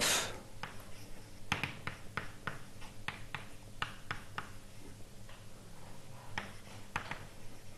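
Writing on a lecture board: a dozen or so short, sharp taps and scratches come irregularly, with a lull just past the middle, over a faint steady room hum.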